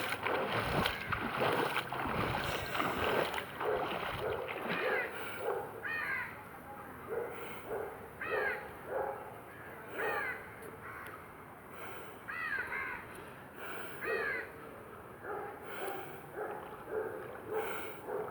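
Water sloshing and splashing for the first few seconds, as of someone wading through floodwater, then crows cawing over and over, about one call a second.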